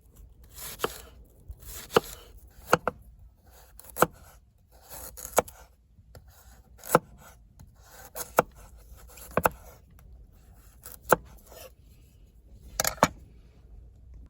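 Kitchen knife chopping food on a cutting board: about eleven separate sharp cuts, a second or so apart, with soft rustling of the food between strokes, over a low steady rumble.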